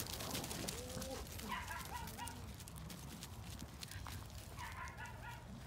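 Dogs' paws and people's footsteps on loose wood-chip ground, giving many small crunching clicks, with faint voices at times.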